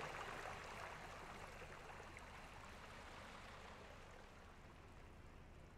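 Near silence: a faint steady hiss with a low hum, slowly fading.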